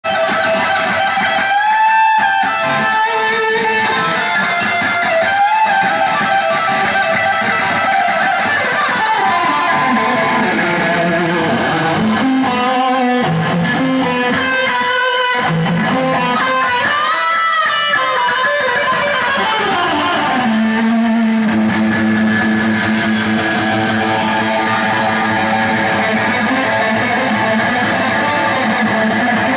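Live heavy metal band, led by an electric guitar solo: single notes bent up and down with vibrato over bass and drums. About twenty seconds in, the band settles onto a held low note under fuller chords.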